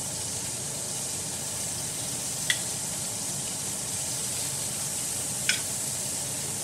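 Beef short ribs searing in a hot skillet: a steady sizzle of browning meat and fat. Two sharp clicks of metal tongs sound against the pan, about two and a half and five and a half seconds in.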